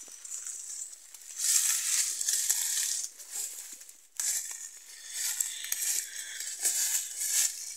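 Footsteps crunching and rustling through a thick layer of dry fallen birch leaves on the forest floor, in uneven bursts; the leaf litter is dry after weeks without rain.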